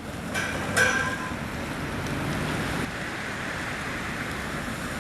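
Two sharp metallic clanks about half a second apart, each with a brief ring, over a steady rush of road noise: a loose metal drain grate in the road knocking as a vehicle passes over it.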